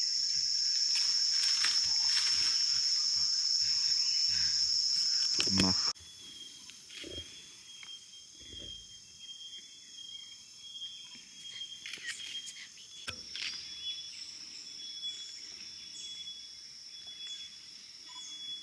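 Forest insects keeping up a loud, steady high-pitched drone. About six seconds in it drops suddenly to a quieter level, where the insects keep trilling with a faint, evenly pulsed chirp.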